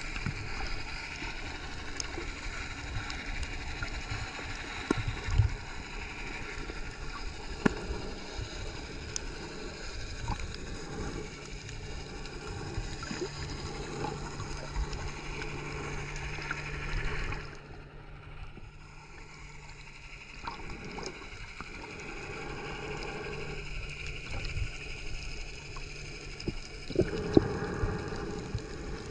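Underwater sound through a submerged camera: a steady muffled water wash with a low hum and scattered faint clicks and knocks, dipping quieter for a couple of seconds partway through.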